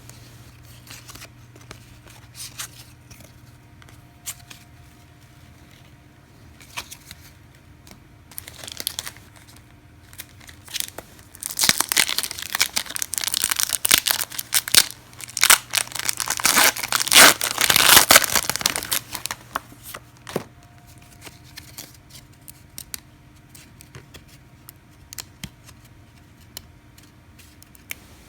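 A trading-card pack wrapper being torn open and crinkled, a dense crackling that runs for about eight seconds in the middle and peaks near its end. Before and after it, scattered light clicks of cards being handled.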